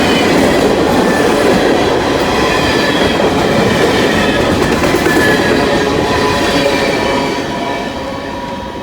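Freight train cars rolling past close by: a loud steady rolling roar with thin, high wheel-squeal tones over it. It fades over the last couple of seconds as the train draws away.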